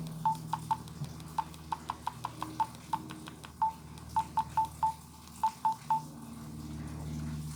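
Flip phone keypad key tones: short single-pitch beeps, about eighteen, at an uneven pace with some quick runs of presses, as the buttons are pressed to navigate the menus. They stop about six seconds in. A low steady hum runs underneath.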